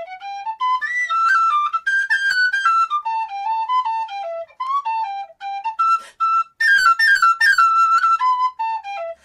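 Blues phrase played on a brass-bodied tin whistle (penny whistle): quick runs of short notes moving up and down by step. It climbs to a few bright, higher notes a little after the middle and runs down again at the end, with brief breaks for breath.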